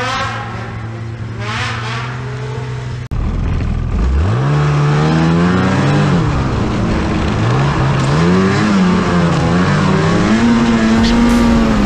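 Ski-Doo snowmobile engine, first a steady low hum, then, after a sudden jump in loudness about three seconds in, revving up and rising and falling in pitch with the throttle while riding, over a steady rush of noise.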